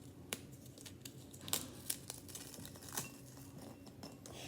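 Graham crackers being crushed into crumbs in a bowl: faint, scattered crackles and snaps, a few of them sharper.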